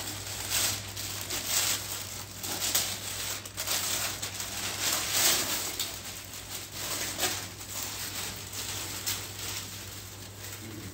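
Thin plastic wrapping crinkling and rustling as it is pulled off a framed painting, uneven and strongest around the middle, then tailing off. A low steady hum runs underneath.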